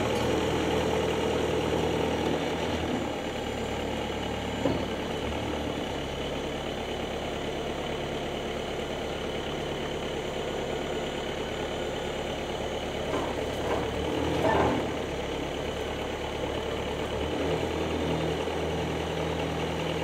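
Portable band sawmill's engine running steadily, with a few short louder sounds about two-thirds of the way through.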